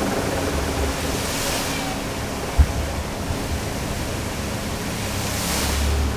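Fountain water jets splashing down into the basin: a steady rush of falling water that swells twice as the jets surge. There is one short thump about two and a half seconds in.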